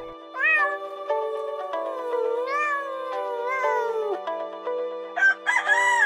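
Goat bleating: a short call, then a long wavering one, over background music. About five seconds in, a rooster starts to crow.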